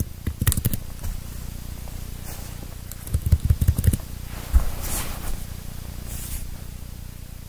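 Bumps and rustling right against a phone's microphone: two clusters of quick knocks, then a single thump and two short swishing rubs, over a steady low hum.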